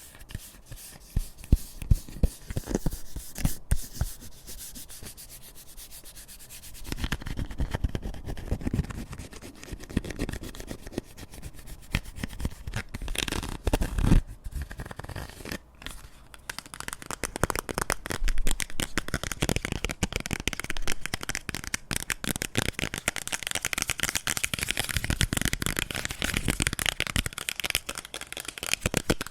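Close-miked ASMR tapping and scratching on objects: a few sharp, separate taps in the first few seconds, then a dense run of rapid fingernail-like scratching and rubbing with occasional louder knocks.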